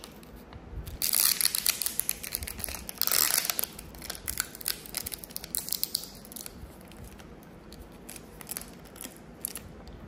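Clear plastic film wrapping on a small cup of colourful chocolate candies being torn and crinkled open by hand, loudest from about a second in to halfway, then lighter scattered crinkles.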